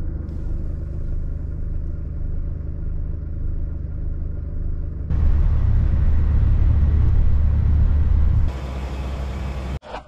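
Vehicle cabin noise: a steady low engine hum, then about five seconds in a louder low rumble of the vehicle driving on the road. The sound changes again with more hiss near the end and cuts off abruptly just before the end.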